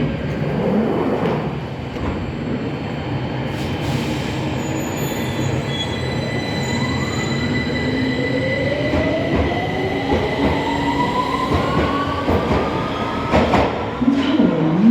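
Victoria line tube train, 2009 Tube Stock, pulling away from the platform: its traction motors give a whine that rises steadily in pitch over several seconds above the running rumble, with a few sharp knocks near the end.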